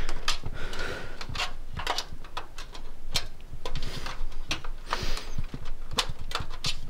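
Irregular clicks, taps and scraping of a cable plug being handled and tried against a computer's ports.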